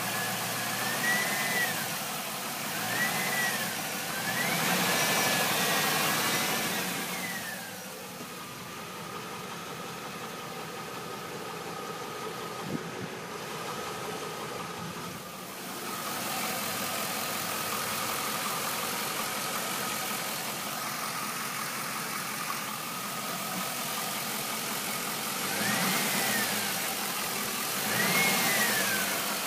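A stock 2002 Camaro Z28's LS1 5.7-litre V8 running, revved up and back down several times in the first few seconds and again near the end, idling steadily in between. It carries a knocking noise that mechanics have called a lifter, though the owner first suspected a bearing.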